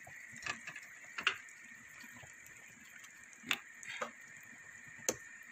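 Wooden spoon knocking against the side of an aluminium stockpot while stirring chunks of vegetables in broth, about five light knocks spaced irregularly over a faint steady high hum.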